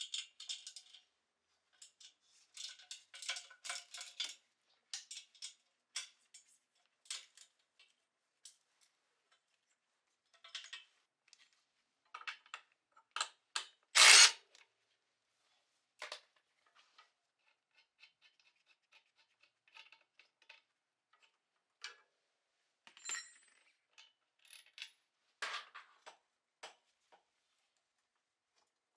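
Scattered metallic clicks and clinks of tools and parts being handled during motorcycle oil-change work, with one louder, half-second scrape about halfway through.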